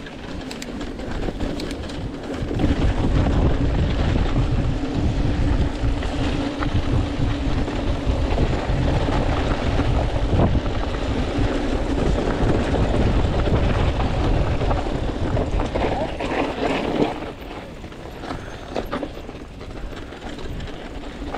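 Hardtail mountain bike riding fast down a dirt trail: wind rush on the microphone over the rattle and rumble of tyres and frame, with a steady buzzing tone underneath. It grows louder a couple of seconds in and drops off sharply about three-quarters of the way through as the bike slows.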